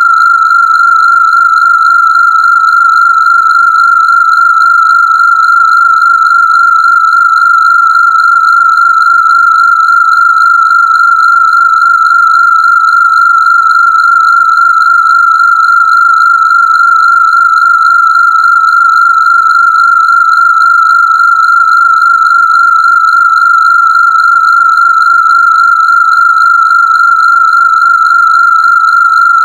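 Steady, loud, high-pitched electronic tone of a Rife frequency, held without change, with fainter higher overtones above it.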